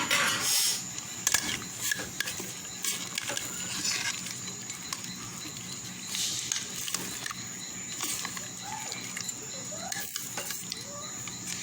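Carrot and pumpkin pieces being added to a pot of cooking red peas and lamb: irregular knocks and clinks over a steady background hum.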